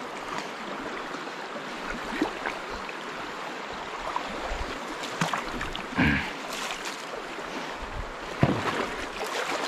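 Shallow stream running over rocks and fallen logs, a steady rush of water, with a few brief splashes or knocks now and then.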